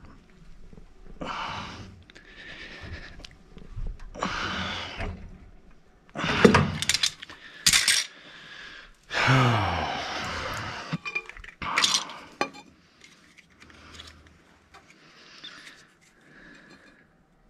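Metal hand tools clinking and clattering as they are picked up and set down on the floor, in several separate bursts with sharp knocks.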